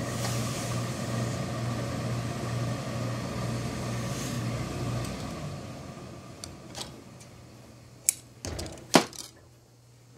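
Tailor's steam iron pressing suit cloth, letting out a steady hiss of steam over a low hum for about five seconds before it fades. A few sharp clicks and knocks follow near the end.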